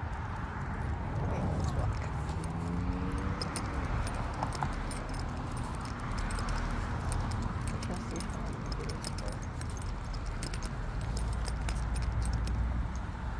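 Metal tags on a dog's harness jingling in quick, irregular clinks as the leashed dog walks and sniffs, over a steady low rumble.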